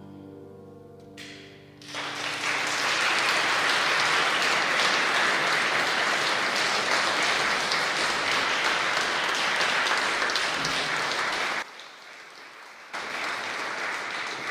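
The last piano and voice notes of an opera aria die away, then audience applause starts about two seconds in and runs steadily. Near the end it cuts off suddenly for about a second and comes back softer.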